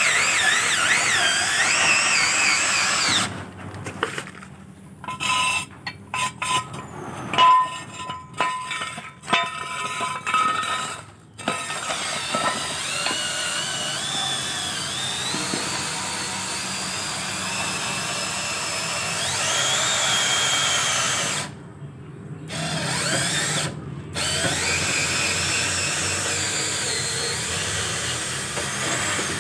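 Scissor jack being wound down with its crank rod to lower the car, a grinding mechanical tool noise. It stops and starts several times in the first half, then runs fairly steadily.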